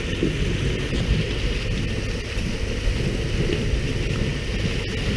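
Steady low rumble of a fishing boat's engine, with a rain-like hiss of water spattering on the sea surface beside the hull and wind on the microphone.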